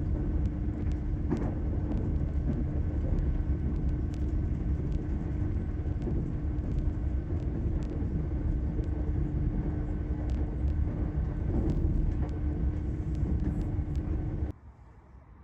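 Moving passenger train heard from inside the carriage: a steady low rumble with a constant hum over it. It cuts off abruptly near the end.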